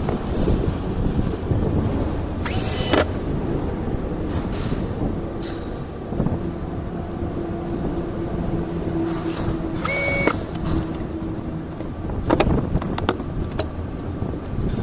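Cordless drill whirring in a few short bursts, over a steady low hum.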